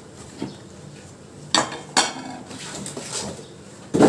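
Kitchen dishes clinking and knocking against each other as they are handled and set down: a few separate sharp knocks, the loudest near the end.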